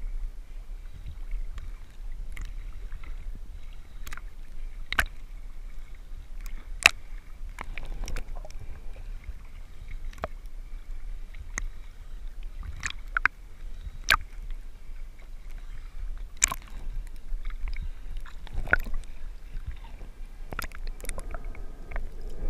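Lagoon water lapping and sloshing against a waterproof camera housing held at the surface, heard as a steady low muffled rumble. About fifteen sharp clicks and knocks are scattered irregularly through it.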